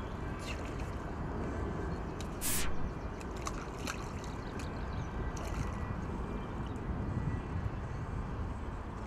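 Wind buffeting the microphone, with water sloshing and splashing as a hooked carp thrashes at the surface close to the bank. A short, loud rasp cuts in about two and a half seconds in, and faint clicks come and go.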